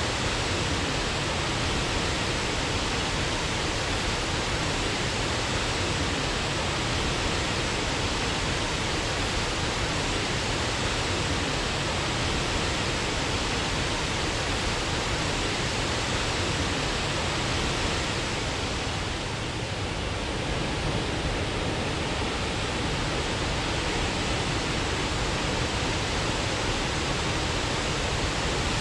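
Waterfall rushing steadily: an even, unbroken wash of falling water, dipping slightly for a moment about twenty seconds in.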